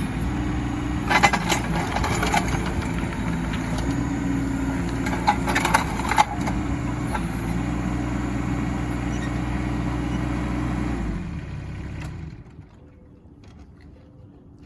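Mini excavator's engine running steadily, with a few sharp clanks about a second in and again around five to six seconds in. The engine shuts off about eleven seconds in, leaving a much quieter background.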